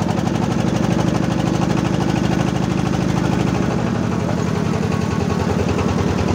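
A motorboat's engine running steadily with a rapid, even beat, with water rushing along the hull.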